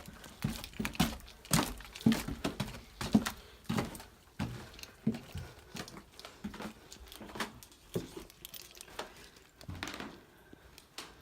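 Footsteps, with small knocks and rustles, moving through a room of an abandoned house. The steps come about two a second at first, then thin out and grow more irregular.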